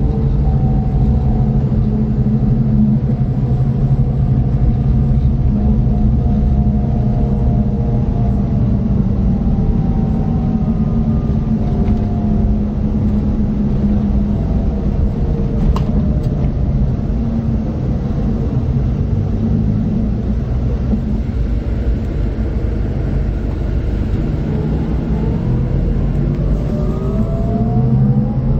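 Scania K440 coach's 13-litre inline-six diesel running, with a whine in its sound that sinks slowly over the first half. Near the end it climbs again as the engine picks up revs. A single short click comes about halfway through.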